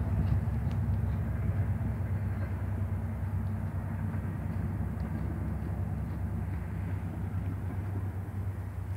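A goat tearing and chewing grass: faint, scattered crisp ticks over a steady low rumble.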